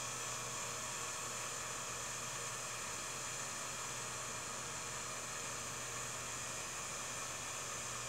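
Steady hiss with a low electrical hum, with no other sound: the background noise of a silent home movie's transfer.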